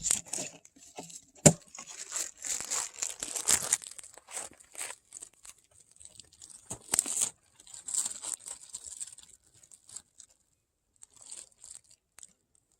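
Plastic bacon packaging being crinkled and torn open in irregular rustling bursts, with a sharp click about a second and a half in.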